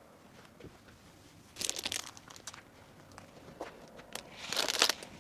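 Crinkly packaging being handled, crinkling in two short bursts, about two seconds in and again near the end, with a few light clicks between.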